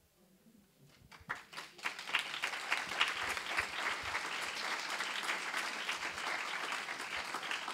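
Audience applause: a few scattered claps about a second in, quickly building into steady clapping from the whole room.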